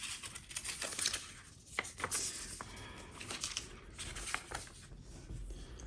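Paper and cardboard packaging being handled: rustling and rubbing with scattered small taps and clicks.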